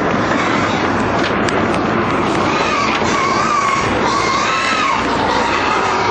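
Pigs packed in a livestock truck squealing, a few wavering squeals in the second half, over a loud steady din.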